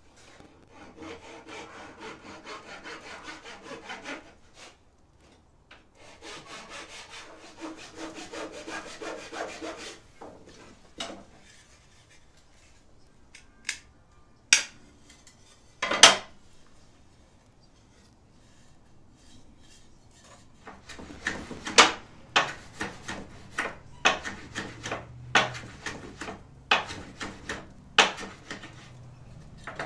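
A small piece of wood rubbed back and forth by hand against an abrasive surface in quick scratchy strokes, in two long spells. A couple of sharp wooden knocks follow, one of them loud. Near the end comes a run of sharper, separate strokes, roughly three every two seconds.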